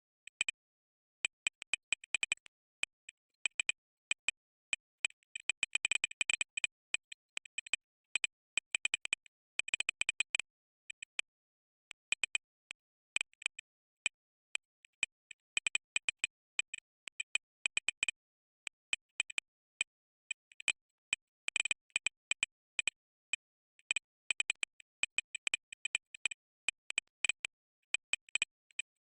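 Computer keyboard keys clicking in quick runs of typing, broken by short pauses between runs.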